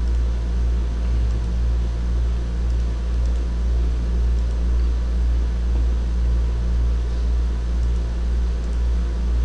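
Steady low electrical hum with a faint hiss over it and no other sound.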